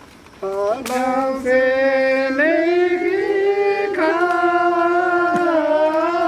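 Singing voice beginning about half a second in, holding long drawn-out notes that step up and down in pitch.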